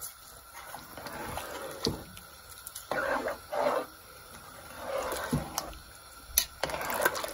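A metal spoon stirring soaked rice into boiling broth in a large metal pot: the liquid sloshes in several short swishes, with a few sharp knocks of the spoon against the pot.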